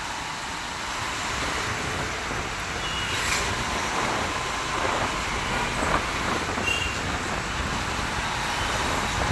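Steady road traffic noise heard from a moving motorcycle in city traffic. A few short high beeps come about three seconds in and again around six to seven seconds.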